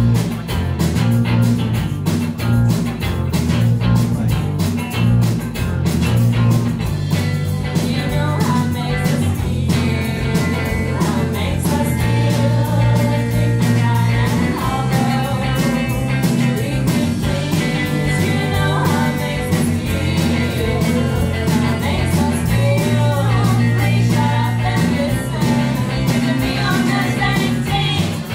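Live band playing a rock song: electric guitar and drums keeping a steady beat, with a woman singing.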